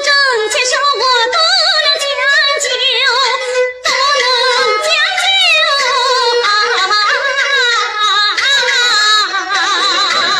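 Recorded Chinese opera singing: a high female-sounding voice sings a continuous melody full of wavering vibrato and ornamental slides, over instrumental accompaniment.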